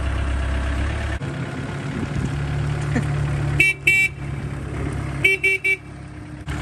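Cat forklift's engine running as it drives, with short horn toots: two about three and a half seconds in, then three quick ones about a second later.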